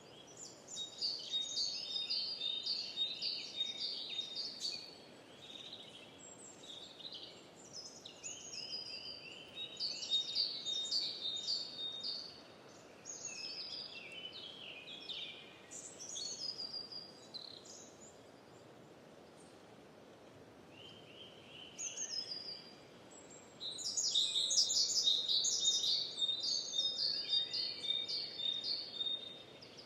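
Songbirds singing in rapid, trilling phrases over a faint steady hush, with a lull of a few seconds past the middle and the loudest singing near the end.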